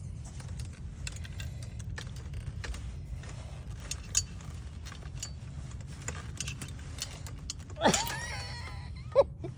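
Small clicks and rattles of a sun umbrella's tilt mechanism and cord being handled and fitted back in place, over a steady low hum. A short squeak comes about eight seconds in, and a sharp click just after nine seconds.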